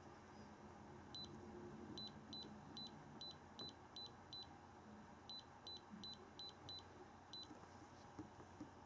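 Short, high electronic beeps from the iCarsoft i907 handheld scan tool's keypad, one per button press as its menu list is scrolled. There are about fourteen faint beeps in quick runs of two or three a second, with a pause near the middle.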